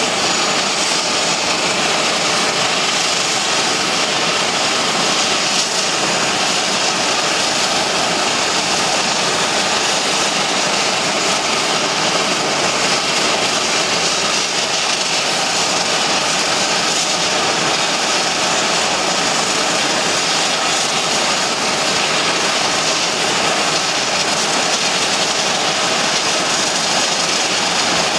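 Beech 1900D's Pratt & Whitney PT6A turboprop engines running steadily while the aircraft stands still, an even turbine hiss and whine with no rise or fall.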